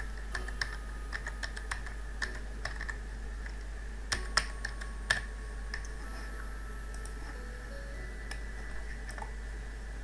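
Computer keyboard typing: a quick run of keystrokes, thinning out after about five seconds, with a few louder clicks between four and five seconds in. A steady low hum runs underneath.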